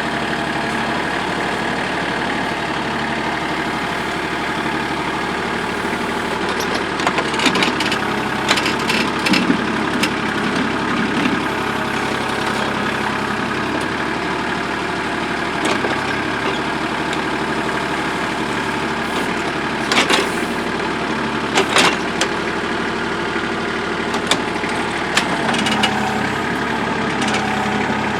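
Backhoe engine running steadily while the bucket scrapes and knocks through hard lamproite rock, with several bursts of sharp scraping and clanking strokes over the engine drone.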